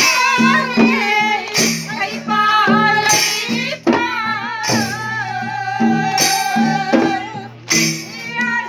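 Devotional Holi singing with two-headed barrel drums beaten along, bright strikes falling about every one and a half seconds.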